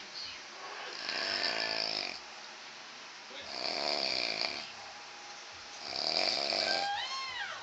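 A man snoring heavily: three loud, rasping snores about two and a half seconds apart, with a brief high whistling glide that rises and falls near the end.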